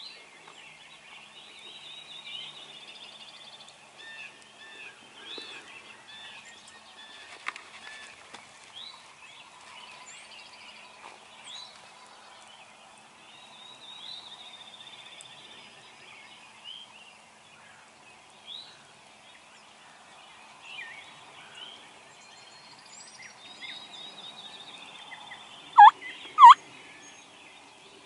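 Wild turkeys calling over a chorus of songbirds, with two loud, short calls close together near the end.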